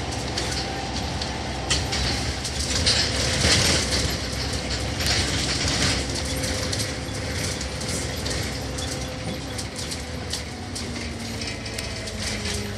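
Inside a single-deck service bus on the move: a steady engine and road drone, with clattering and rattling from the bus body, loudest about three to five seconds in.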